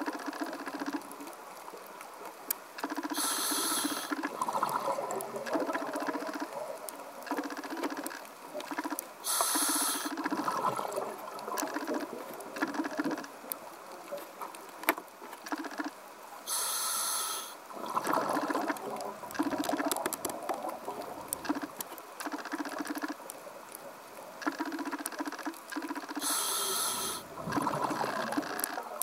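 Scuba regulator breathing heard underwater: four short hisses of inhalation, about seven seconds apart, each followed by the bubbling of the exhalation. A steady fine crackle runs underneath.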